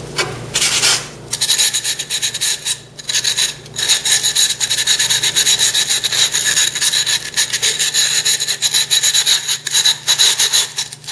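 Emery cloth rubbed quickly back and forth over the freshly cut rim of a glass bottle, grit scraping on glass to take down the sharp cut edges. The fast strokes run almost without a break, pausing briefly around three seconds in.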